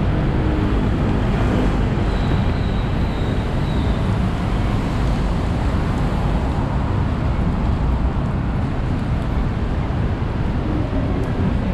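Steady street ambience dominated by a low, even rumble of road traffic.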